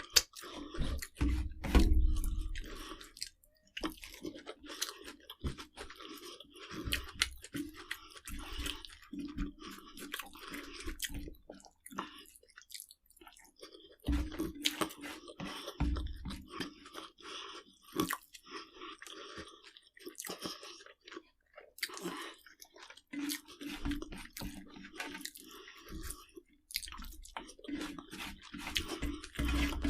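A person chewing crunchy food, with irregular crunches and crackles and soft low thumps.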